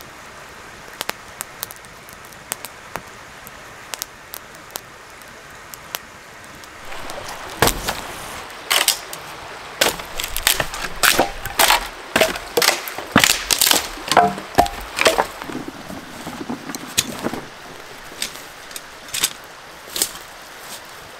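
Campfire crackling with scattered sharp pops; about seven seconds in, a run of loud cracks and snaps for about ten seconds as dry dead wood is broken by hand, then the fire's crackle alone again.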